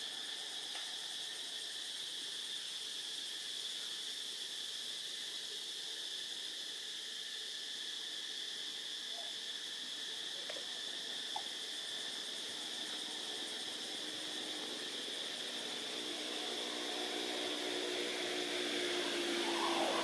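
A steady, high-pitched drone of insects over a faint hiss. In the last few seconds a low, even engine-like hum grows louder.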